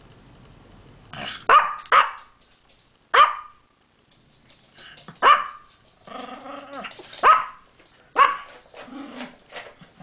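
A Pomeranian gives about six short, sharp, high yipping cries, each falling in pitch, with lower, drawn-out grumbling warbles in between near the middle and end. The owner likens these to cat and seagull sounds.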